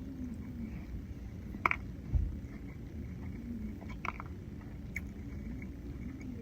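Biting into and chewing a beef taco: wet chewing with a few sharp clicks and one low thump, over a steady low hum.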